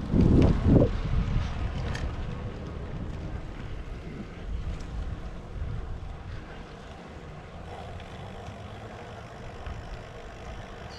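Wind rushing over a moving action camera's microphone while cycling, a steady low rumble with a strong gust in the first second.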